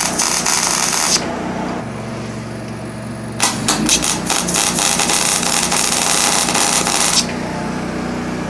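MIG (wire-feed) welder arc crackling as steel parts are tack welded: a short weld that stops about a second in, then a longer one of about four seconds starting about three and a half seconds in. A steady low hum runs underneath.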